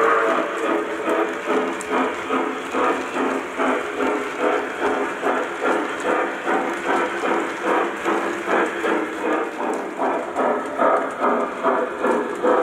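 Lionel O-gauge steam locomotive's electronic sound system chuffing in a steady rhythm, about two to three chuffs a second, as the model train runs with its wheels rolling on the track.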